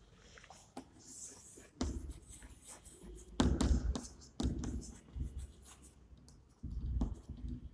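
Writing on a board: a run of short strokes and taps, with dull knocks about two, three and a half, and seven seconds in.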